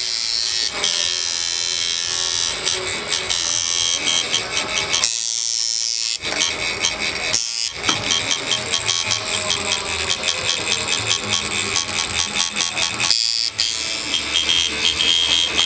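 Coil tattoo machine buzzing steadily as it works, its sound cutting out briefly a couple of times.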